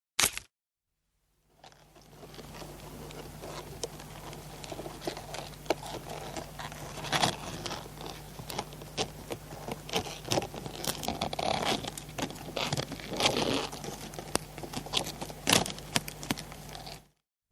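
Crab's claw scraping and clicking against a hard object: an irregular run of scratches with sharper clicks mixed in, over a steady low hum. It starts about two seconds in and stops abruptly shortly before the end.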